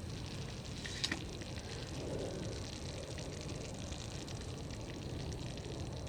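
A metal spoon clinks once against a cooking pot about a second in, over a steady low rumble.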